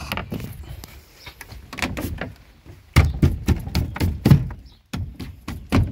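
Wooden board and PVC pipes of a homemade trolling-motor mount knocking and thudding against the plastic kayak hull as the pipes are set into the rod holders. A series of irregular knocks and thuds, loudest about halfway through.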